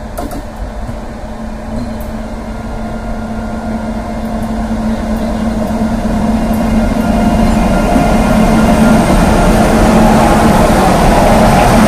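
Indian Railways WAG-9HC electric locomotives approaching and passing close by at the head of a container train. A steady electric hum and the rolling rumble of wheels on rails grow steadily louder as the locomotives draw level.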